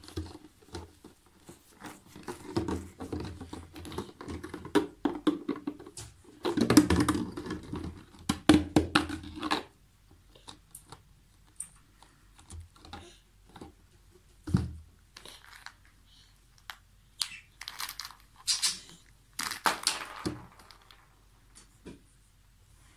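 In-shell walnuts rattling and knocking inside a large thin plastic water bottle as it is handled, shaken and tipped, with the plastic crinkling. Busy clattering for the first half, then scattered single knocks.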